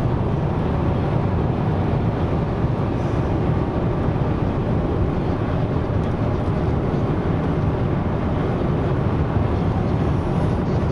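Steady road and engine noise inside a car's cabin while driving at speed on a motorway: an even, deep rumble with no breaks.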